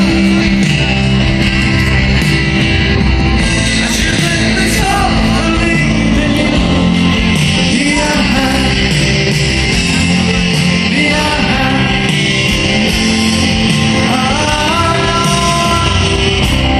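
Live rock band playing at full volume, with drums, electric guitars and a male lead singer, recorded loud from among the audience.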